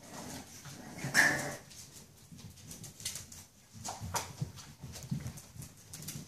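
Puppies playing, with one short high puppy yelp about a second in. Light scuffling and clicks of paws on a tile floor run through the rest.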